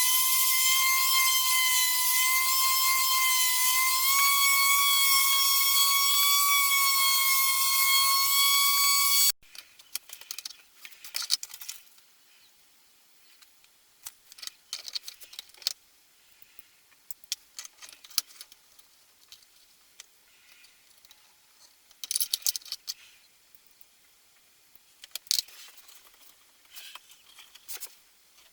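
A power tool's motor runs with a steady high whine for about nine seconds, then stops abruptly. After that come scattered clicks and knocks with quiet between them.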